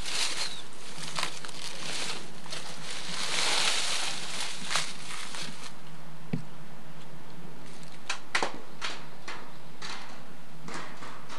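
Leaves and twigs rustling and crackling in scattered sharp clicks, with a denser stretch of rustling a few seconds in and another cluster of snaps near the end, over a steady low hum.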